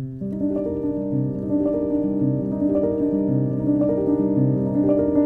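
Instrumental intro music led by piano, with a steady, repeating pattern of sustained notes.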